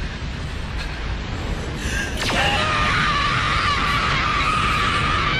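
A boy anime character's long scream of rage from a Japanese-dubbed soundtrack: it starts about two seconds in, then is held high and wavering, over a low rumbling background. A sharp swish sweeps across just as the scream begins.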